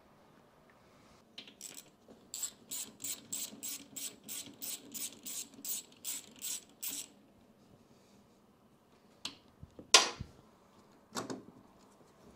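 Hand socket ratchet clicking in a steady run of about three clicks a second as a 10 mm starter mounting bolt is backed out. After it stop, three separate sharp knocks follow, the middle one the loudest sound.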